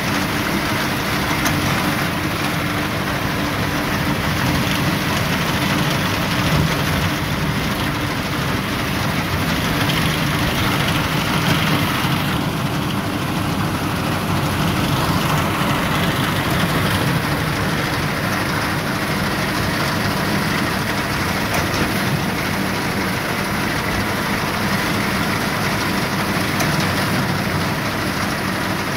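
Tractor engine running steadily under load while the PTO-driven Yapel DG-140 reaper-binder cuts and gathers standing wheat, the machine's running noise dense and unbroken.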